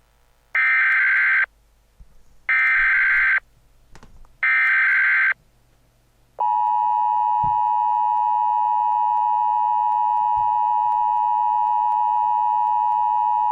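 Emergency Alert System header: three screechy bursts of SAME data tones, each about a second long with short gaps between them. About six seconds in comes a steady, loud alert attention tone. Together they mark the start of a new emergency alert.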